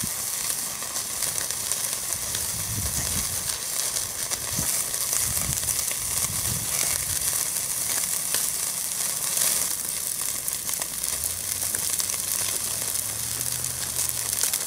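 Steak searing on a grill grate directly over a chimney starter of hot lump charcoal: a steady sizzle with scattered crackles.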